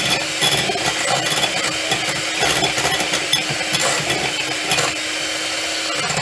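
Electric mixer running steadily on a high setting, its beaters whirring and rattling through butter icing, until it cuts off near the end.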